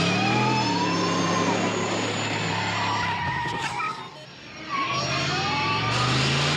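DeLorean car engine revving up and accelerating with tyres squealing, under remote control; the revs drop briefly about four seconds in, then climb again.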